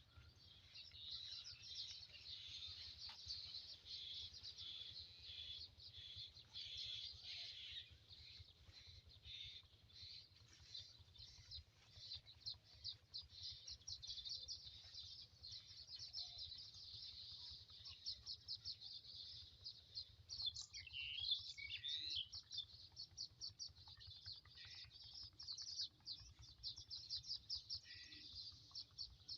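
Faint outdoor birdsong: rapid high chirping that keeps up throughout, with a louder call of sliding notes about twenty-one seconds in.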